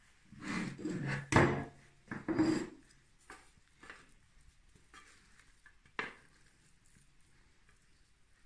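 Handling of a Thermomix's stainless-steel mixing bowl. There is a sharp knock about a second in as the bowl is moved, then a plastic spatula scrapes and knocks biscuit dough out of it into a glass bowl, in a few light, uneven strokes that thin out.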